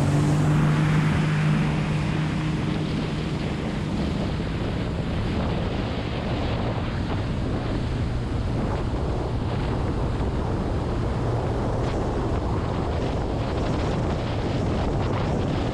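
Jet ski running at speed out along a creek: its engine tone is plain for the first few seconds, then sinks under a steady rush of wind buffeting the microphone and water hissing past the hull.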